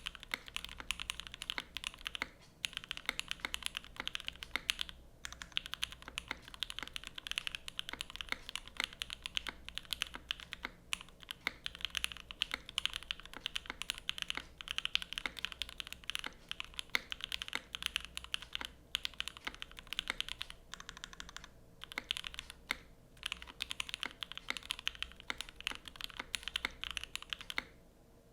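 Fast, continuous typing on a 60% mechanical keyboard with lubed Gateron Oil King linear switches, GMK Olivia keycaps, an aluminium plate and an O-ring mount. The keystrokes come in long runs with a few brief pauses, and the typing stops just before the end.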